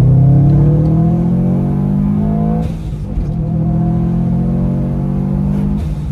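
Turbocharged 2.5-litre flat-four boxer engine of a tuned Subaru WRX STI accelerating hard, heard from inside the car. The engine note climbs for about two and a half seconds and drops with an upshift, then climbs again for about three seconds and drops with a second upshift near the end.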